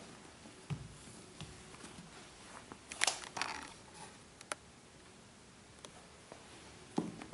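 An Air Jordan 11 sneaker being handled and set down: a soft low thump under a second in, then scattered quiet rustles and sharp clicks, with a knock near the end.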